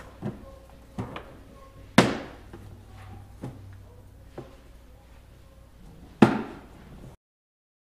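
Hard plastic knocks and thuds as speaker port tubes and a speaker pod are pushed and seated into a hard motorcycle saddlebag. There are several light knocks and two loud sharp ones, about two seconds in and near the end.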